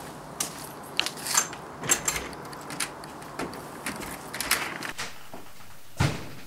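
Footsteps and scattered clicks and knocks along a garden path, then a house front door being opened. A single dull thump comes about six seconds in.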